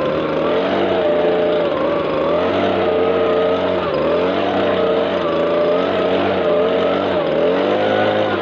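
Small petrol engine running steadily, its pitch dipping briefly and recovering every second or two.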